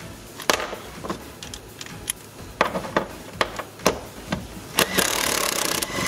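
A cordless impact driver hammers on a third-row seat mounting bolt for about a second near the end, loosening the tight bolt. Before it come scattered clicks and knocks of tools against the bolts.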